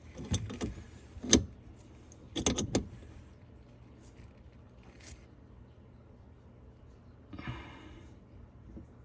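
Metallic clinks and knocks from tightening a faucet supply-line coupling under a kitchen sink, a handful of sharp clicks in the first three seconds, then a brief scrape near the end.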